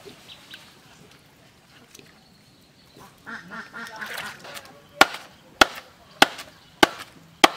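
A wooden club pounding a bamboo stake into wet ground: five sharp, loud blows evenly spaced a little over half a second apart, starting about five seconds in.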